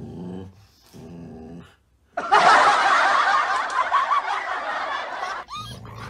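Two short low husky growls, then a loud burst of laughter lasting about three seconds.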